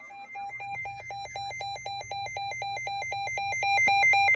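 Electronic emergency-alert alarm beeping rapidly, about five pulses a second, growing louder toward the end and then cutting off abruptly.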